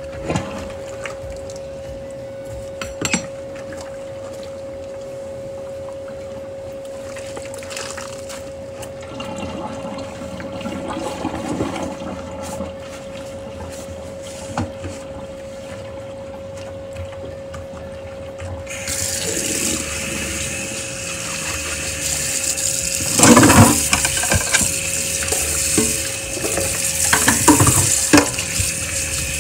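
Dishes being washed by hand in a stainless-steel sink: scrubbing with a few separate clinks, then about two-thirds of the way through the tap is turned on and runs steadily while plastic plates clatter and knock as they are rinsed.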